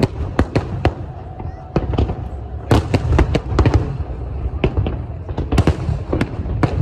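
Aerial fireworks display: shells bursting in quick, irregular succession, a dozen or more sharp bangs over a continuous low rumble.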